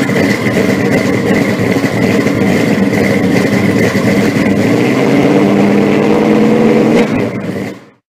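A car engine running loud and rough at idle, picking up a little in pitch and level about five seconds in, then cut off with a quick fade near the end.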